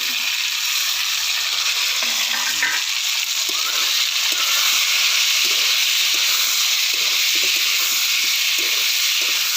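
Potatoes, tomatoes, onions and capsicum sizzling steadily as they fry in hot oil in a pan, stirred now and then.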